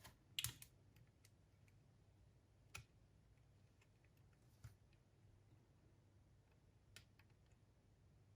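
Faint, sharp clicks and taps of small parts and tools being handled while a cassette walkman's mechanism is reassembled: a short cluster about half a second in, then a few single clicks a couple of seconds apart, with near silence between.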